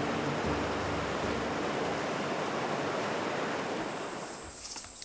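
Rushing water, a steady dense hiss like a rainforest river running over rapids, fading away about four seconds in. A high, steady insect whine comes up near the end.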